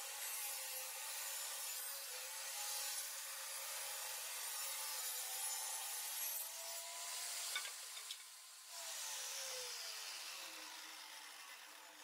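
Table saw running and ripping a board fed through with a push block. About three-quarters of the way through there is a sharp click, and then the blade winds down with a falling hum.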